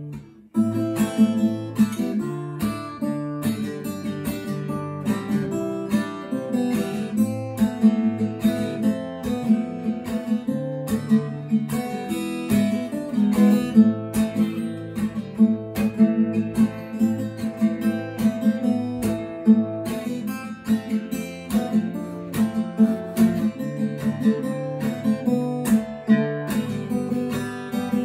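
Solo acoustic guitar playing a song in A minor, picked notes and chords in a steady rhythm, with a short break just after the start.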